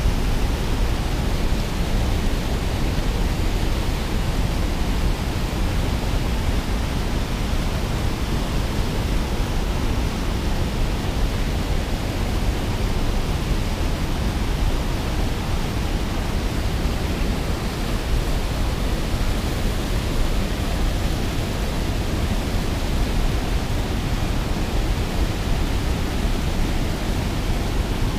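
Steady rush of turbulent, foaming water churning through a spillway.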